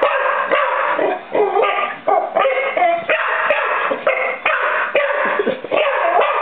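Lab-beagle mix dog barking and yipping at blue crabs in rapid bursts, with only brief pauses.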